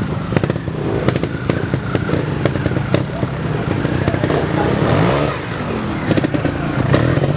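Trials motorcycle engine revving up and down as the bike climbs a steep section, its pitch rising and falling near the middle, with frequent sharp clicks and knocks.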